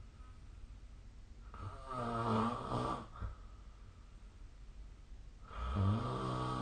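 A sleeping person snoring: two long, low-pitched snores about four seconds apart, each lasting about a second and a half.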